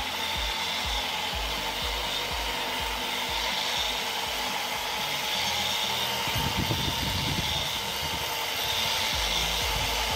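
Homemade cultivator driven by an electric angle grinder, running steadily under load: the grinder motor whines at a constant pitch while the tines churn through soil, with a rougher stretch of churning about two-thirds of the way through.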